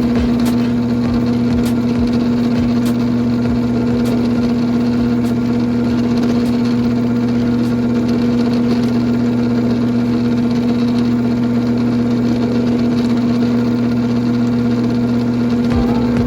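A motor running steadily: an even hum, with a few faint clicks.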